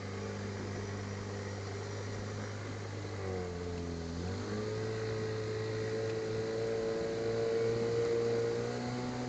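Small boat's outboard motor running under way. About three seconds in, its pitch dips briefly, then rises and holds higher as the throttle opens. Near the end it eases back down.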